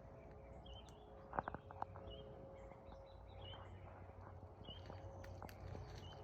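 A small animal repeating a short, high peep about every second and a half, over a faint steady hum. A few sharp clicks sound about a second and a half in.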